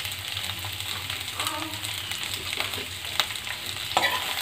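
Chopped onions and capsicum sizzling in hot mustard oil in a metal kadhai, with scattered sharp clicks; near the end a spatula begins stirring and scraping against the pan.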